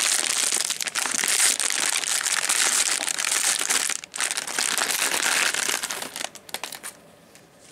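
Clear plastic wrapping crinkling as it is handled, with a short break about four seconds in; the crinkling dies away to a few faint rustles about six seconds in.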